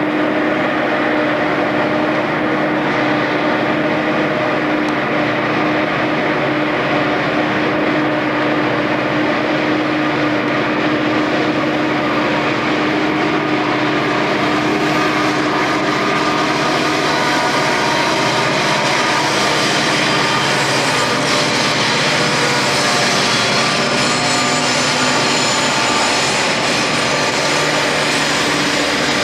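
EMD SD40-2 diesel-electric locomotives, their turbocharged V16 two-stroke engines in full throttle (notch 8), making a steady loud drone with a strong low tone while hauling a heavy freight up a steep grade. A higher-pitched noise builds up over the second half.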